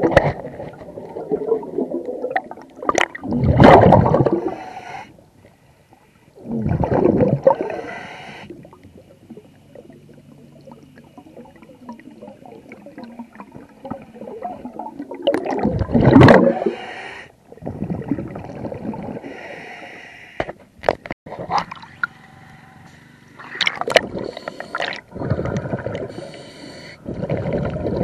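Underwater, a diver's breathing regulator vents exhaled air in loud bubbling bursts a few seconds apart, with quieter hiss and rumble between them. A few sharp clicks come about twenty seconds in.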